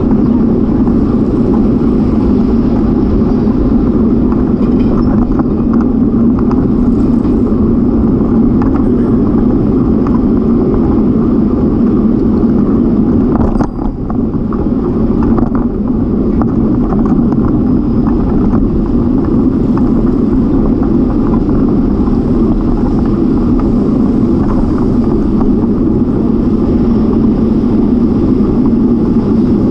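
Steady wind and road rumble picked up by a bike-mounted camera while riding a bicycle, easing off briefly about halfway through.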